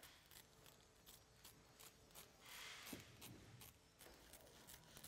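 Faint, steady run of short snips from lightweight 8-inch Gingher scissors cutting HDPE shade cloth along a strip of tape, with a soft rustle of the cloth about two and a half seconds in.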